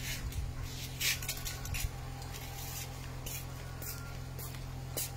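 Short rustling bursts from tomato plant foliage being handled, about eight in five seconds, over a steady low hum.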